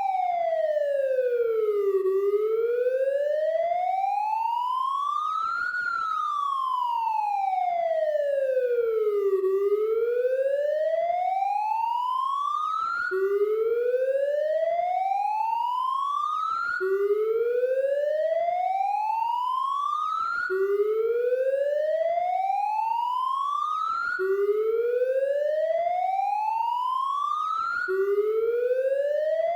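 Police siren wailing, one clean tone gliding slowly up and down about four seconds each way. Roughly halfway through it switches to a repeating pattern of slow rising sweeps, each snapping back to the low pitch, about every three and a half seconds.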